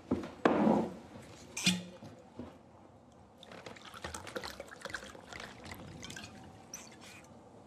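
A couple of knocks and a clink of glass in the first two seconds. Then gin trickles from a bottle into a glass tumbler over ice for a few seconds.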